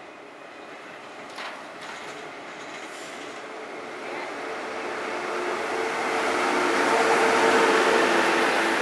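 HXD3C electric locomotive hauling passenger coaches, approaching and passing close by, growing steadily louder to a peak near the end. Its rail and running noise carries a steady hum that strengthens as it draws level, with a couple of clicks about a second and a half in.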